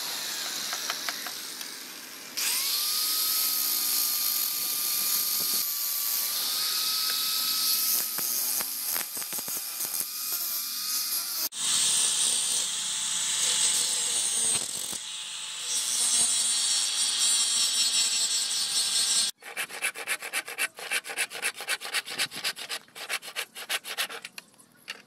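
Angle grinder with a sanding disc grinding a knife's wooden handle scales: the motor's steady high whine over a loud rasp of grit on wood, in two long passes with a break between. Near the end, a run of quick rhythmic rubbing strokes, about four a second.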